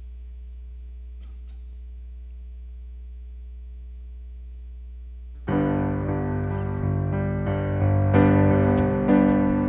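A faint steady hum with a few held tones, then about five and a half seconds in a piano starts playing loud sustained chords, struck again about once a second.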